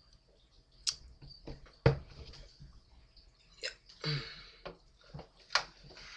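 Handling noise from picking up an acoustic guitar and settling it on the lap: a handful of scattered sharp clicks and knocks with a short rustle about four seconds in.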